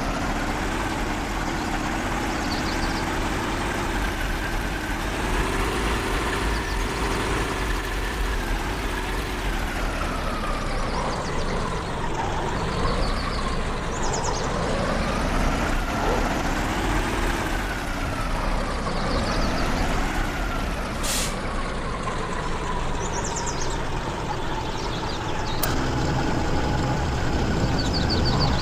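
Off-road vehicle's engine running under load while driving, its pitch rising and falling repeatedly with the throttle. There is a sharp click about two-thirds of the way through, and the engine gets louder near the end.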